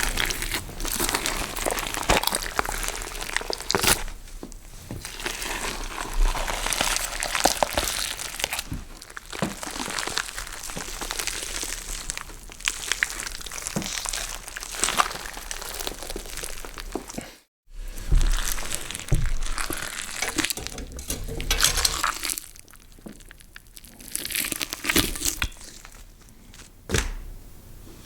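Two crunching gore sound effects in a row, cut apart by a brief silence about two-thirds of the way through. Both are dense, irregular crushing, crumpling and tearing noises full of small cracks, the kind of foley made for flesh and bone being crushed and torn.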